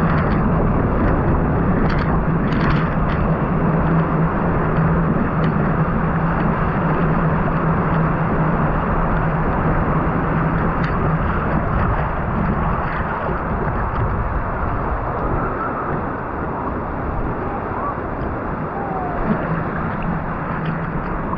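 Steady rush of ocean surf and breaking wave water, with a low steady hum underneath for much of the time.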